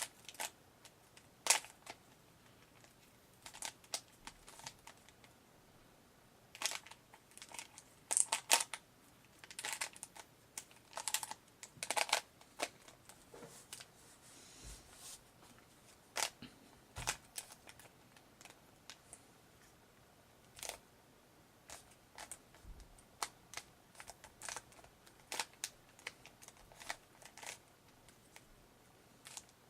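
A plastic Rubik's Cube turned by hand: the layers give irregular, sharp clicks and clacks, in quick flurries with short pauses between them.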